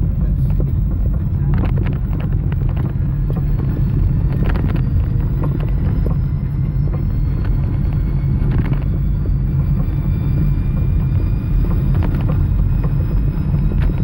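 REVA G-wiz electric car driving, heard from the cabin: a steady low road rumble with a faint electric-motor whine that slowly rises in pitch as the car gathers speed, plus a few knocks and rattles from the body.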